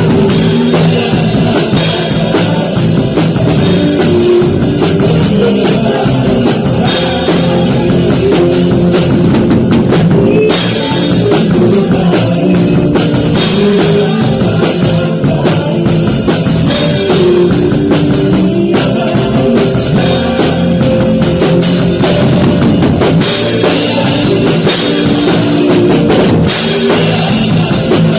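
Worship band playing live in a steady groove: an acoustic drum kit with bass drum and cymbals, over keyboard, electric guitar and bass guitar. The cymbals drop out for a moment about ten seconds in.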